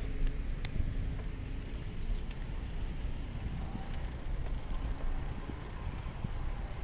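Wind buffeting the microphone during a bike ride, a steady low rumble with scattered small clicks and rattles.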